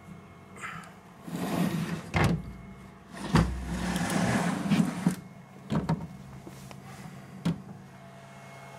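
Aluminium-framed clear cover of a CNC mill's electronics cabinet being handled and lifted open: rubbing, scraping noise with four sharp knocks, over a steady low hum of the cabinet's cooling fans and power electronics.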